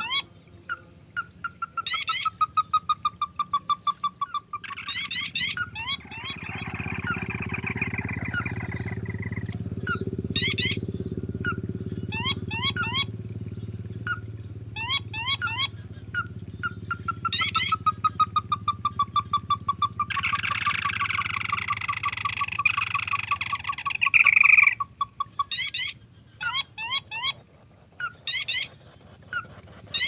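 Crake calls: short bursts of quick, sharp notes repeated again and again, and twice a long trill that falls in pitch and slows down. Twice a broad low rumbling noise swells in over the calls, the second one cutting off sharply.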